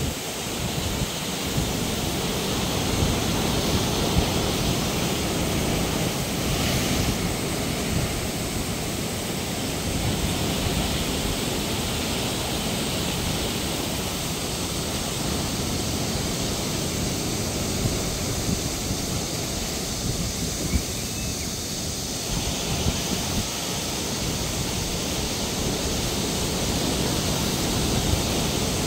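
Sea waves breaking on rocks and washing up a sandy shore in a steady surf noise, with wind buffeting the microphone.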